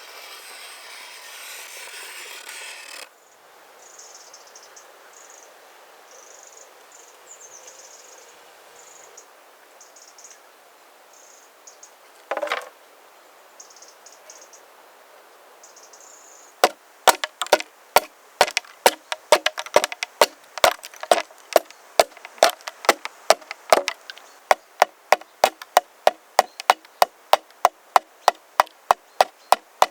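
Axe chopping wood: a steady run of sharp strikes, about two to three a second, begins a little past halfway. Before it come a few seconds of rasping hiss at the start and a single sharp knock, with insects chirping faintly in the background.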